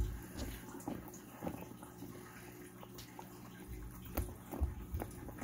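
Husky chewing and gnawing a treat, with irregular crunching clicks and wet mouth sounds.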